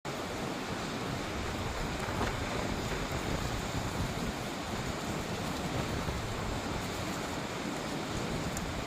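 Steady rushing wind buffeting the microphone outdoors, a continuous noise with an uneven low rumble.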